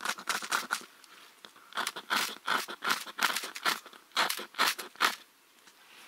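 A miniature FireFly ferrocerium rod struck repeatedly to throw sparks: a quick series of short rasping scrapes, with a brief pause about a second in. The strokes stop about a second before the end.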